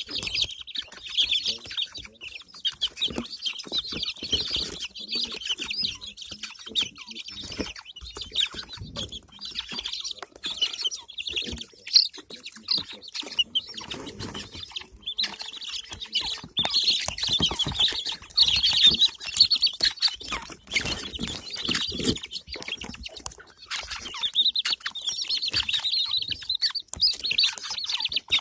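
A brood of domestic chicks peeping, many high chirps overlapping. The peeping thins out for several seconds in the middle and swells again afterwards.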